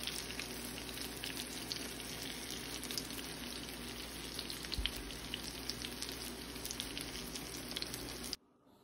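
Eggplant omelette (tortang talong) frying in hot oil in a pan: a steady sizzle with many small crackles and pops, and a light bump about halfway through. The sizzle cuts off suddenly near the end.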